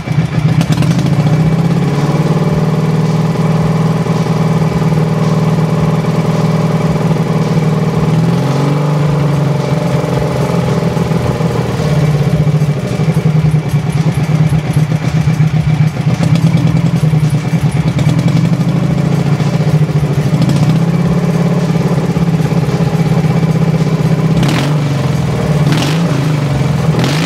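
Dnepr MT motorcycle's air-cooled flat-twin engine running, with the revs raised a few times and falling back. This is a charging test: the generator gives no charge at idle and charges only once the revs rise, reaching about 13.7 V, a little below normal.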